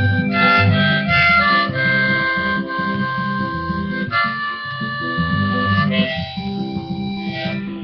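Harmonica in a neck rack playing long held notes and chords over a strummed acoustic guitar, an instrumental break between sung verses of a folk song.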